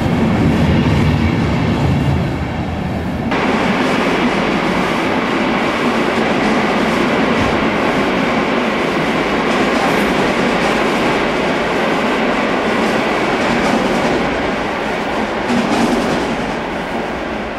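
Train moving on the tracks through a station, a loud steady running and rail noise. The sound changes abruptly about three seconds in, from a low hum with steady tones to a broad, even rush.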